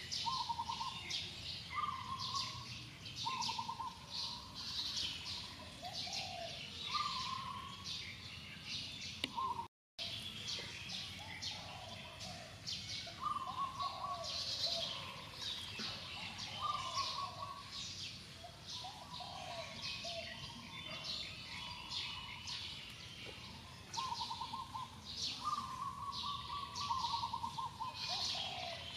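Forest birds singing: a dense, busy chatter of high chirps with a short warbled phrase repeated lower down every couple of seconds. The sound cuts out completely for a moment about ten seconds in.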